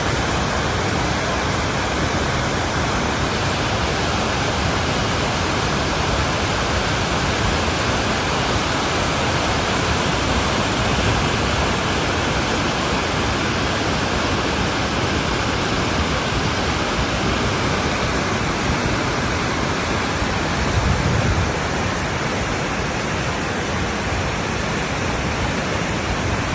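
Steady rushing water, an even roar that holds level throughout, with a brief low swell near the end.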